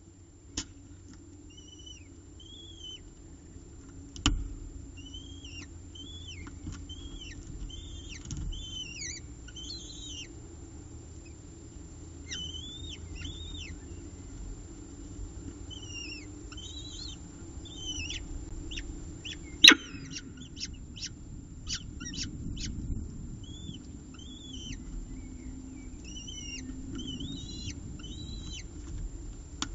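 Downy peregrine falcon eyases giving short, high, arched begging chirps in quick runs while being fed, over a steady low hum. A few sharp clicks cut through, the loudest a knock about twenty seconds in.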